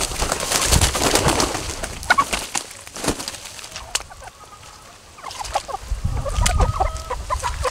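A flock of asil gamefowl chickens clucking in short repeated notes. Dry fallen leaves rustle and crunch underfoot in the first second or so.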